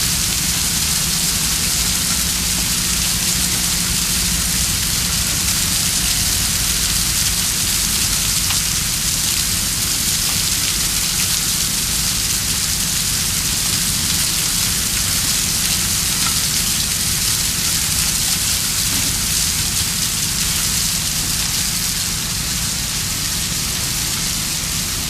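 Water still running from the plant's utility lines, a steady rain-like hiss of spray with a low rumble underneath.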